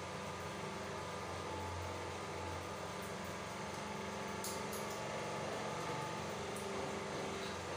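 A steady low mechanical hum, even in level throughout, like a fan or motor running.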